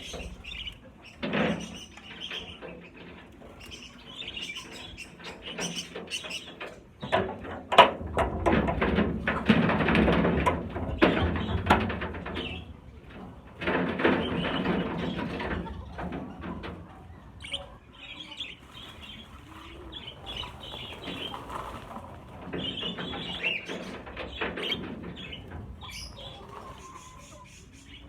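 A flock of budgerigars chattering and chirping, with two loud flurries of many wings flapping around the middle.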